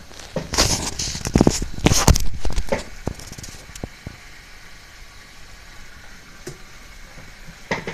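Knocks, clicks and rustling for the first three seconds, then a steady, fainter hiss of steaks sizzling in a pan.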